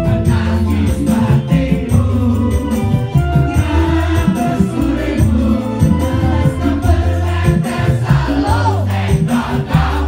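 Live campursari music through a PA system: a band with a heavy, steady bass line under a male singer and female backing singers.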